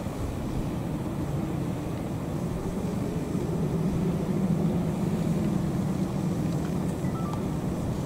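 Low steady hum of a distant engine, growing a little louder midway and easing off toward the end.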